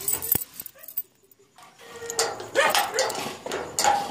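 A dog whining and yipping in short, pitched calls that bend up and down. The dog falls quiet for about a second in the middle, then starts up again more densely. There is one sharp click at the start.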